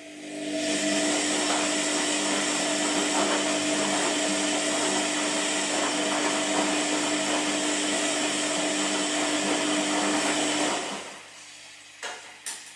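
Washing machine running a turn of its wash cycle: a steady whirring rush with a humming motor tone starts at once, holds for about ten seconds, then winds down and stops. Two short knocks follow near the end.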